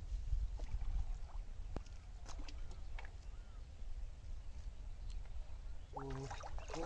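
Quiet outdoor ambience on a small fishing boat: a low steady rumble with a few light knocks and faint short calls. A man's voice starts near the end.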